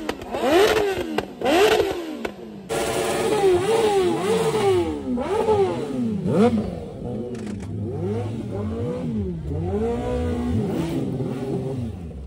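Superbike engine revved in quick repeated throttle blips, each rev rising and falling in pitch, about one a second. The sound jumps abruptly about two and a half seconds in.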